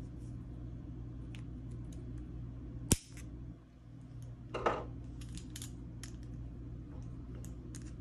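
Flush-cut side cutters snipping a wire close to the hall sensor board on a Schwintek motor: one sharp snip about three seconds in. A short clatter follows, then light handling clicks, over a steady low hum.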